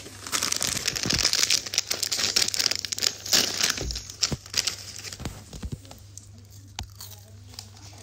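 Plastic snack packets crinkling as hands handle them, dense for the first few seconds, then a few scattered softer crackles.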